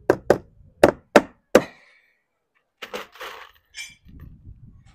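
Claw hammer driving a nail through the top edge of lead sheet cladding into the plywood beneath: five sharp blows in quick succession within the first two seconds. Softer knocks and rustling follow.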